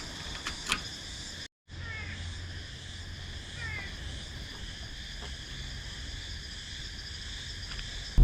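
Steady chorus of insects trilling at several high pitches, with a few short bird chirps and a low hum underneath. The sound drops out completely for a moment about a second and a half in.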